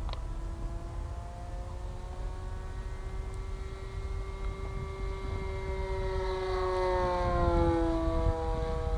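Electric RC airplane's brushless outrunner motor and propeller whining in flight, a steady high tone whose pitch climbs slightly and then drops away near the end.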